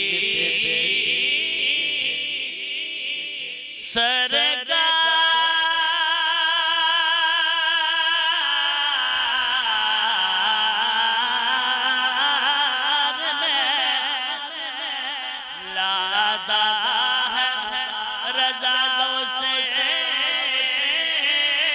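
A man singing an Urdu naat solo into a microphone, drawing out long held notes with a wavering ornament. He breaks off briefly about four seconds in and again past the middle.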